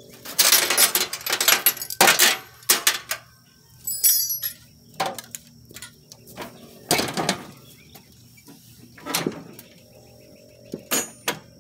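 A person moving about and sitting down on a riding mower: irregular rustles and knocks, with a short metallic jingle about four seconds in.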